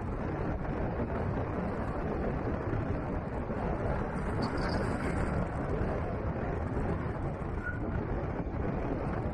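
Steady road noise of a vehicle driving along a sandy dirt track: the low rumble of tyres and engine, even throughout.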